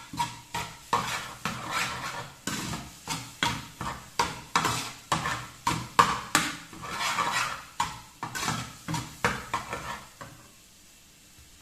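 Slotted turner scraping and tapping against a non-stick frying pan while chopping and stirring scrambled eggs, about two or three strokes a second. The strokes stop about ten seconds in.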